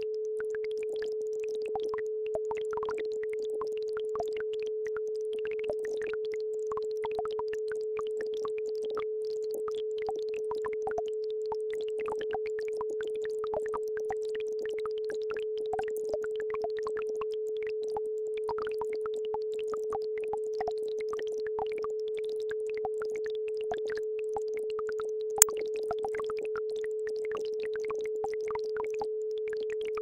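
A steady mid-pitched electronic tone, the isochronic tone of a brainwave-entrainment track, plays over the scattered trickling and plopping of a babbling brook. One sharp click stands out late on.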